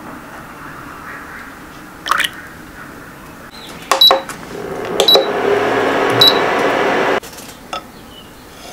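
An induction cooktop being switched on: its buttons give three short, high beeps about a second apart, and its cooling fan and coil start a steady whirring hum that stops suddenly near the end. Before that, a faint stream of milk pouring into a pan and a single clack as the pan is set down.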